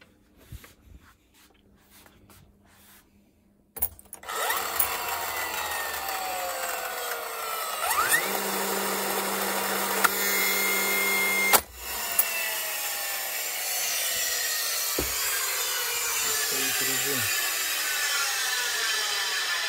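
DeWalt DCN692 cordless flywheel framing nailer being test-fired into a wooden block. After a few quiet seconds its motor starts whirring, winding up and down in pitch, with one sharp crack midway as a nail fires. It makes a small crackle as the motor slows, which the repairer puts down to a worn motor bearing.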